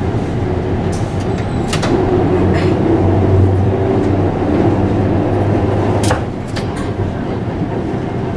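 Historic series 2800 tram running along street track, heard from inside the driver's cab: a steady motor and running hum, with two sharp clicks about two seconds in and again about six seconds in.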